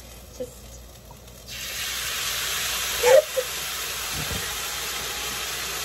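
Sauce-coated food sizzling in a hot pan. The sizzle starts suddenly about a second and a half in, as condiment sauce hits the hot pan, then holds steady.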